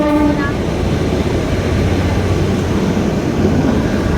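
Steady running noise of the narrow-gauge toy train, heard from inside the passenger coach, with a low hum under an even rushing rumble. A brief pitched tone sounds at the very start.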